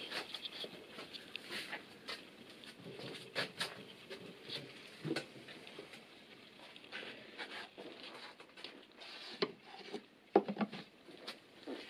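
Faint scattered clicks, taps and rubbing of gloved hands working at a bare aluminium automatic transmission case, with a couple of sharper knocks near the end.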